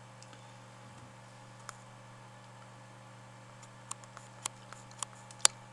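A handful of light, irregular clicks from a phone being handled and tapped, the loudest a sharp click near the end. A steady low electrical hum runs underneath.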